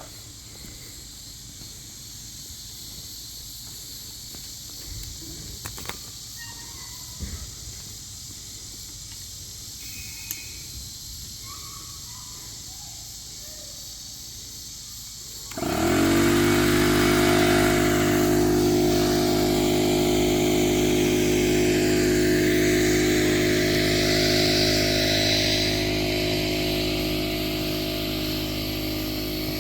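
Portable air compressor starting up about halfway through, rising quickly in pitch and then running steadily with a loud hum and a hiss above it. Before it starts, there are only faint outdoor sounds and a few light knocks.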